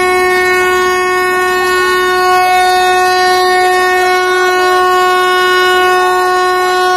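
A truck's horn held down in one long, unbroken blare at a single steady pitch.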